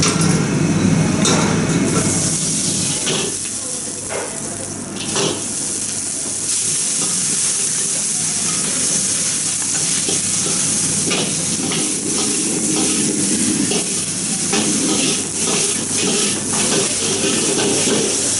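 Green vegetables stir-frying in a hot wok: a steady sizzle and hiss of steam, broken by scattered short clicks of metal on the wok, over a steady low hum.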